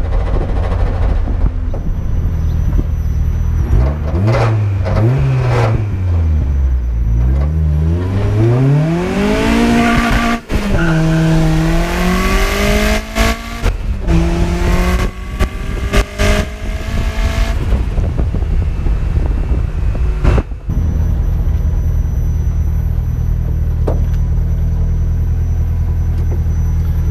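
Turbocharged Mazda MX-5 Miata's 1.6 four-cylinder engine, fitted with a large GT3582 turbo, running at wide-open throttle on about 0.7 bar of boost. The revs climb hard three times with brief breaks for gear changes, and a loud rushing hiss rises with them under boost. The engine then comes off the throttle and settles to a steady low drone.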